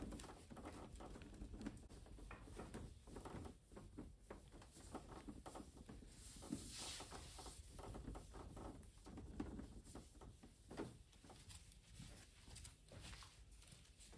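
Faint rubbing strokes of a damp wipe drawn over a flat-screen TV's screen, many short scratchy swipes one after another, with a brief hissing swish a little past the middle.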